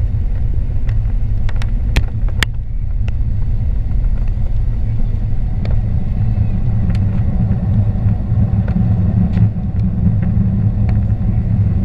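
Cabin noise over the wing of an Airbus A380-861 on its takeoff run: a loud, steady low rumble from its Engine Alliance GP7200 turbofans at takeoff thrust and the wheels on the runway, with scattered sharp knocks and rattles. The aircraft lifts off near the end.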